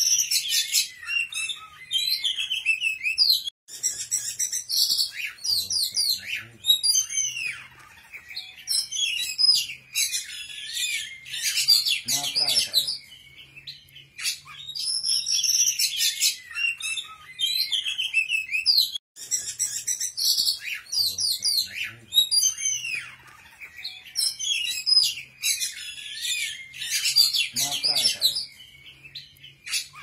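A songbird singing a fast, varied song of high chirps, trills and whistled notes with short gaps. The same passage of about fifteen seconds plays twice, as a looped recording.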